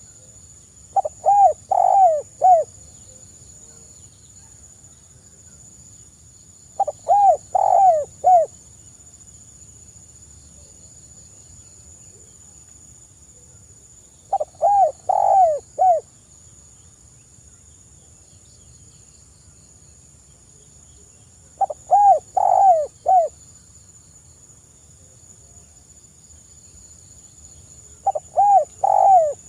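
Spotted dove cooing: five phrases about seven seconds apart, each a quick run of four or five notes.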